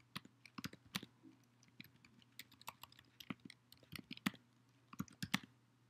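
Computer keyboard typing: quiet, irregular key clicks in short runs.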